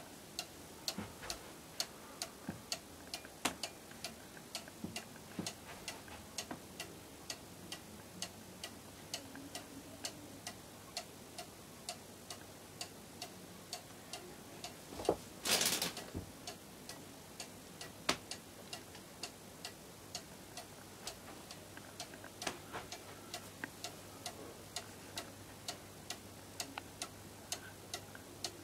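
Weight-driven cuckoo clock ticking steadily, about two ticks a second. About halfway through there is a brief louder noise.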